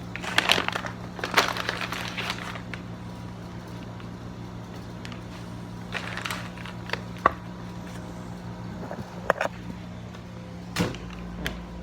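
Rustling and handling noises of hardware and packaging being picked up and carried, with scattered sharp clicks and a knock near the end, over a steady low hum.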